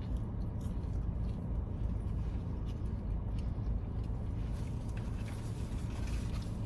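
Steady low rumble of an idling car engine heard from inside the cabin, with a few faint clicks.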